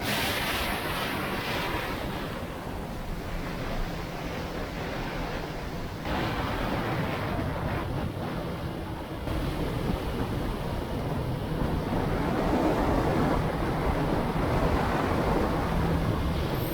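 Wind roaring over the camera's microphone on a moving motorcycle, with the Kawasaki Ninja 650's engine faintly audible beneath it; the roar steps up about six seconds in and again a few seconds later.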